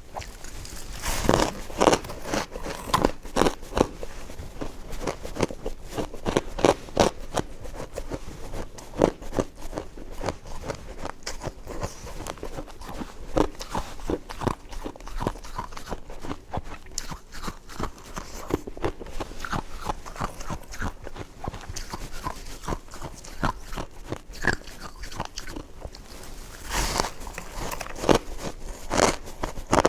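Close-miked biting and chewing of snow ice from the fridge: continuous crunching and crackling, with louder bites near the start and twice near the end.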